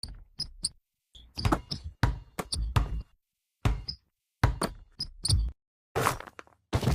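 A rapid series of short knocks and thumps, cut together in quick edited bursts with dead-silent gaps between them, some with brief high squeak-like blips.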